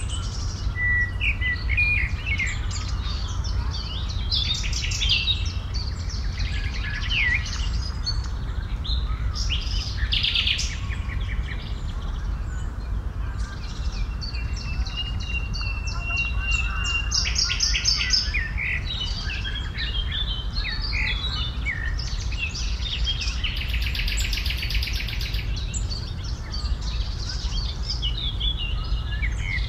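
Several songbirds singing and calling at once: repeated chirps and trills, and one held whistled note partway through, over a steady low rumble.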